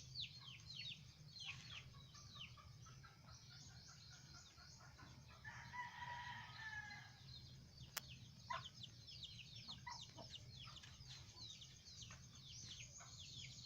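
Chickens: a steady stream of short, high, falling peeps and chirps, with a rooster crowing once about six seconds in, over a low steady hum.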